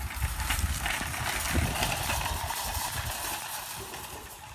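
Shopping cart rolling fast over an asphalt street, its casters and wire basket rattling, with a low rumble of wind on the microphone. Loudest in the middle, easing off near the end.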